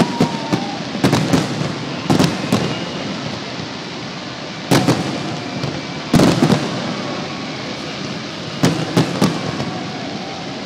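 Aerial fireworks bursting in clusters of sharp bangs every second or two, over a steady crackling hiss, with faint whistles.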